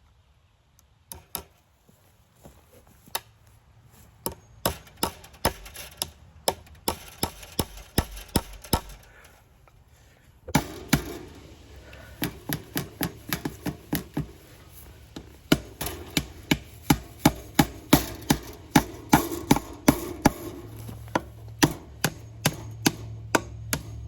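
Hammer blows driving fence staples into a wooden fence post to fix brace wire: runs of sharp strikes, about two a second, with a short pause partway through.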